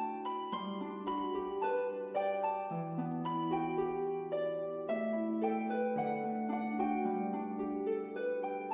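Background music: gentle plucked notes, harp-like, in a flowing pattern of several notes a second over slowly changing low notes.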